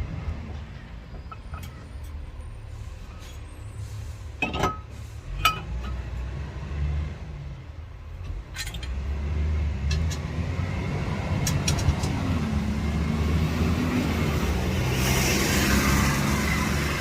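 A few sharp metallic clicks and knocks as a brake caliper is handled and fitted back onto the front hub. A low vehicle rumble underlies them and swells louder in the second half.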